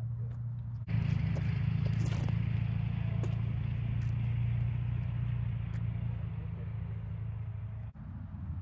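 Steady low outdoor rumble with a hiss over it, like distant traffic or wind. It switches on abruptly about a second in and cuts off just as abruptly near the end, leaving a quieter low hum underneath.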